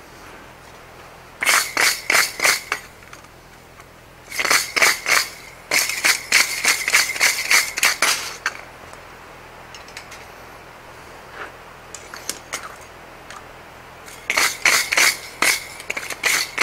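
Hand-held steel wire brush scraped back and forth across a steel anvil face in three runs of quick strokes, about four strokes a second, with a few light strokes in between.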